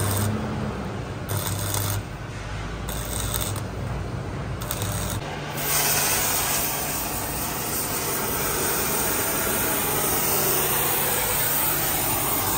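For the first five seconds or so, crackling, rasping bursts come and go over a low steady hum while sparks fly from the metalwork. Then a gas torch flame sets in with a steady hiss as it heats the underside.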